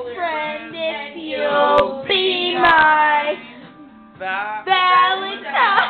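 A person singing a slow melody, holding long notes that slide in pitch, with a short pause about four seconds in.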